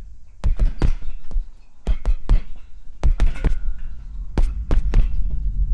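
Boxing gloves landing punches: about a dozen sharp thuds at an irregular pace, in quick clusters, over a low steady throb.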